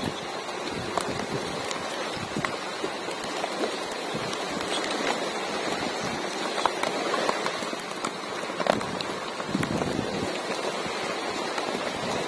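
Steady rain-like water noise, dotted with many small wet clicks and slaps and a few louder ones.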